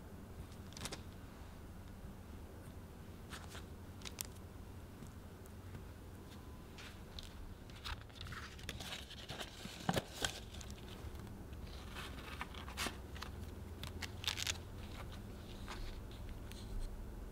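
Light handling sounds of a stainless steel cake ring cutting and moving on sponge cake sheets and parchment paper: a few scattered clicks, then a busier run of crinkling, scraping and soft taps midway, with one sharper tap, as a sponge round is fitted and pressed into the ring on a metal tray.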